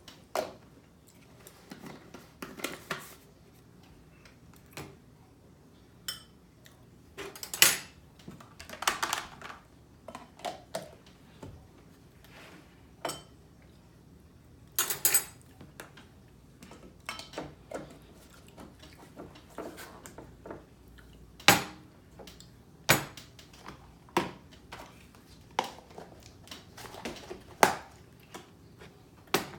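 Dishes and cutlery clattering and clinking: scattered irregular knocks and clinks, a few louder ones ringing briefly.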